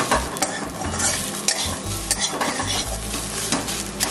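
A steel spatula scrapes and stirs grated radish filling around a hot metal kadhai in irregular strokes, over a steady sizzle. The filling is still watery and is being stirred until the moisture cooks off.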